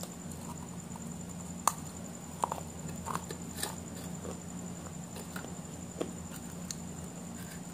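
Close-up chewing and mouth sounds of someone eating, with scattered soft clicks and crunches, the sharpest about a second and a half in, over a steady low hum.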